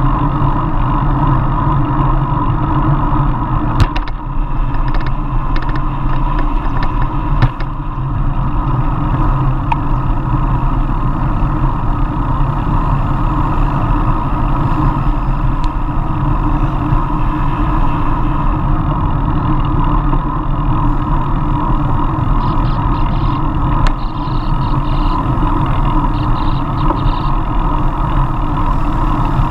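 Steady wind rush over a bike-mounted camera's microphone while riding a road bicycle, mixed with tyre and road noise. Two sharp clicks come in the first eight seconds.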